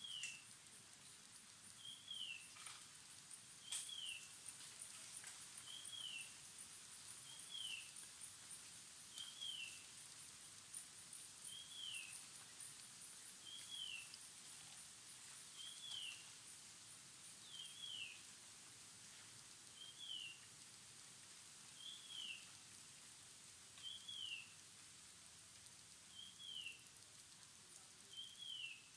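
Faint bird call: a short falling note repeated steadily about every two seconds over a constant high-pitched hiss.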